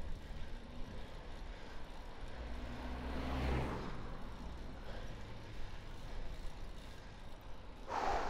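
Street traffic and road noise heard from a moving bicycle, with one vehicle passing about three seconds in, swelling and fading. A sudden loud rush of noise comes in near the end.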